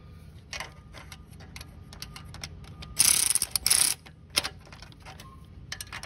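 Small metal clicks and taps of hand tools working on the engine, with a loud burst of rapid ratchet clicking about three seconds in that lasts about a second.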